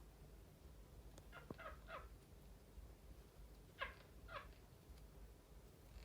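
Quaker parrot giving short, faint chirping calls: three quick ones about a second and a half in, then two more a couple of seconds later.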